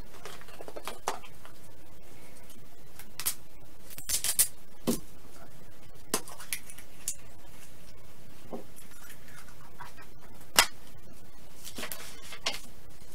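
Hollow plastic Easter eggs being handled and pulled open on a table: scattered light clicks and taps, the sharpest about ten and a half seconds in.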